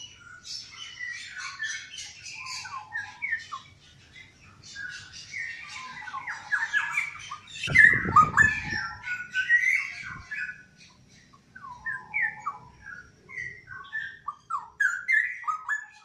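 Straw-headed bulbul (cucak rowo) singing in repeated bursts of quick notes sliding up and down, with short lulls between phrases. The song is loudest about halfway through, where a brief low rumble comes in under it.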